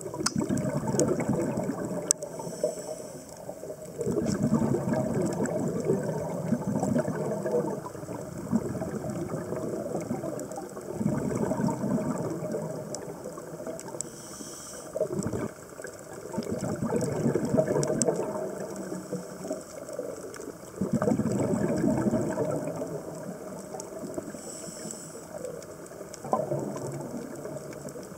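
Scuba diver's regulator breathing heard underwater: surges of bubbling exhalation about every four to five seconds, with a brief hiss of inhalation between some of them.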